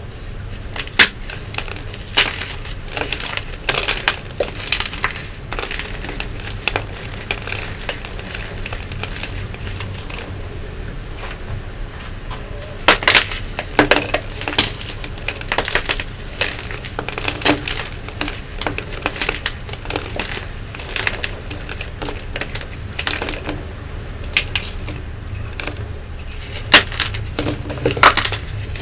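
Crunchy Nexo gym chalk blocks being crushed and crumbled in the hands: a dense run of sharp crunches and crackles, with louder breaks about a second in, about halfway through and near the end.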